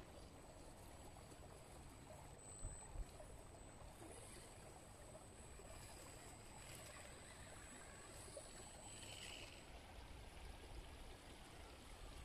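Near silence: faint outdoor background hiss with a thin steady high-pitched tone, and a couple of faint knocks between two and a half and three seconds in.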